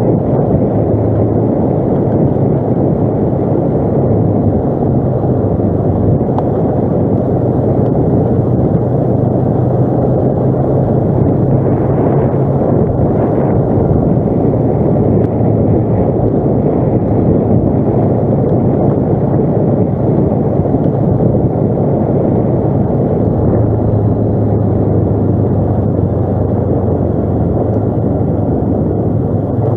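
ATV engine running steadily under way, its low drone stepping slightly up and down in pitch with the throttle, over a dense rumble of wind and terrain noise on the microphone.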